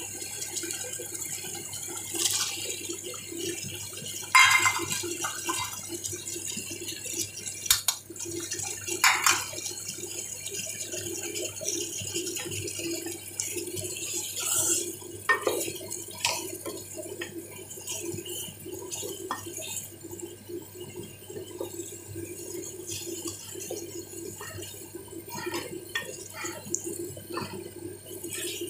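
Tomato masala bubbling and sizzling in an aluminium pot as a spoon stirs it, later with diced potatoes stirred through. A few sharp knocks and scrapes of the spoon against the pot stand out over it.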